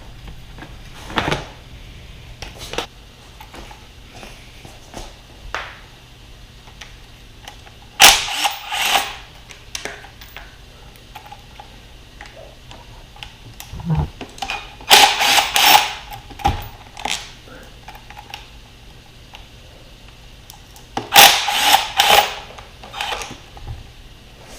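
Tools working on the fasteners of a dirt bike's seat, plastics and gas tank: three short bursts of loud rattling tool noise, each about a second long, with quieter clicks and knocks between them.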